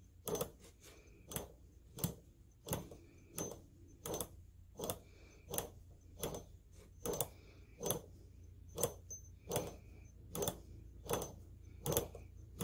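American Bosch FX-1 magneto turned slowly by hand at its drive gear, its spark snapping across the spark plug's gap with a sharp click about once every two-thirds of a second, steady and regular. It is a perfect spark, the sign of a recharged magneto in good order.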